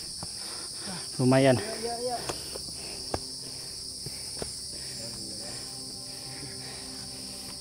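A steady, high-pitched chorus of forest insects, with scattered footsteps of hikers on a dirt trail and a single spoken word about a second in.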